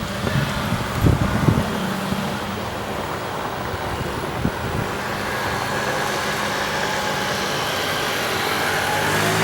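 Mercedes-AMG GT S twin-turbo V8 running at idle with a steady low hum. A short cluster of sharp bangs comes about a second in and another single bang a few seconds later. Near the end the pitch begins to rise.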